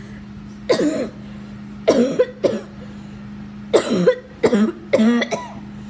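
A child coughing hard: several loud coughs in three or four bunches, over a steady low hum.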